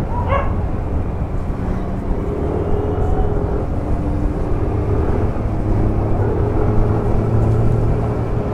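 Yamaha NMAX v2 scooter's single-cylinder engine running steadily while riding, a low hum with a faint whine that comes and goes, over road noise.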